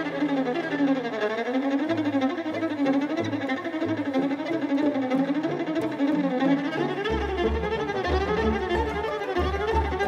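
Background music: a fast, winding melody that keeps running up and down, over low bass notes that come in more steadily near the end.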